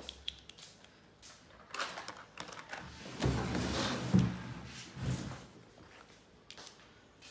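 Large plastic toy building blocks clicking and clattering as a child handles them and presses them together, with a louder stretch of rustling and a knock about three to four seconds in.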